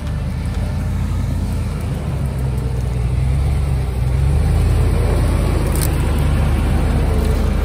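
Range Rover P38's engine running at low speed under load as it crawls up a rocky lane, growing louder as it draws close, most of all from about four seconds in.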